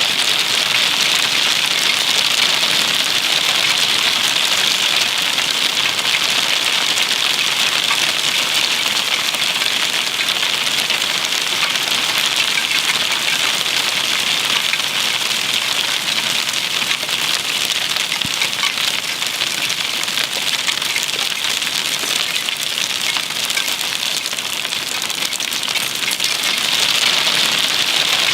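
Hailstorm: hailstones and rain pelting down, a dense, steady patter of countless small hits.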